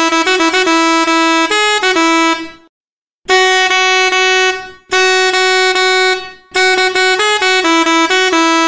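Seger 24 V three-trumpet electric melody horn sounding its tune patterns. First comes a fast run of stepping notes that cuts out about two and a half seconds in. Then come two long held blasts with brief breaks between them, and then the quick stepping notes start again near the end.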